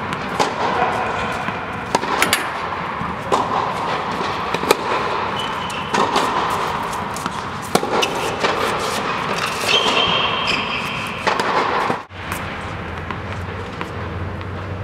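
Tennis balls struck with rackets in a rally: sharp hits every second or two over the steady background noise of an indoor court hall. A low hum comes in about twelve seconds in.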